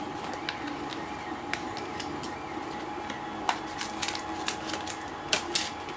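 A small plastic parts bag rustling and crinkling as it is handled and snipped open with scissors, with scattered light clicks.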